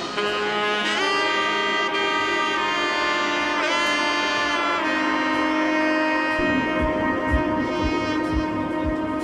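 Background music: a melody of held notes over sustained accompaniment, with a light beat coming in about six seconds in.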